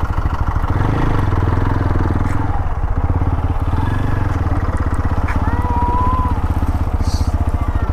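Motorcycle engine idling with a steady, even pulse while a school bus drives slowly past close by, its engine adding a heavier low sound for a couple of seconds about one second in.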